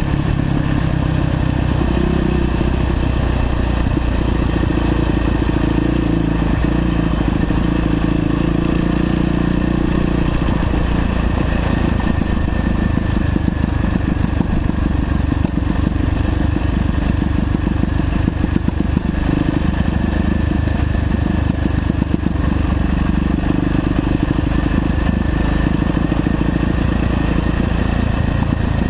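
2009 Yamaha YZ450F dirt bike's single-cylinder four-stroke engine running steadily while riding down a dirt road.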